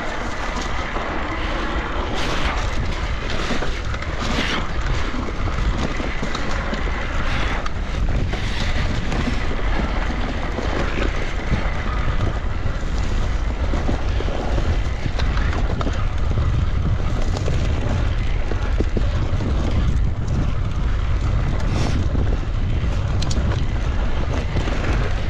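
Wind buffeting the microphone while riding an electric mountain bike, with a steady rush of tyre and trail noise and a few short knocks from the bike over bumps. The low rumble of the wind grows stronger in the second half.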